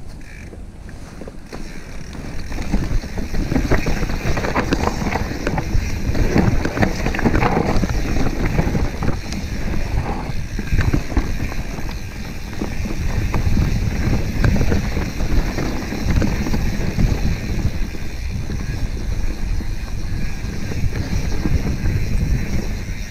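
Mountain bike descending a dirt singletrack at speed: wind buffeting the microphone over the rumble of tyres on dirt, with frequent knocks and clatter from the bike over bumps. It picks up and gets louder about two seconds in as the descent gathers speed.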